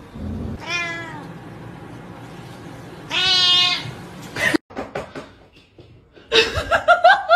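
A domestic cat meowing twice, each call falling in pitch; the second, about three seconds in, is louder and longer. Near the end a person starts laughing.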